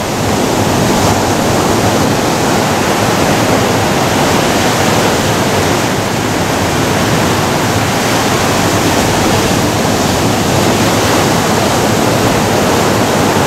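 Ocean surf breaking and washing among beach boulders: a loud, steady rushing.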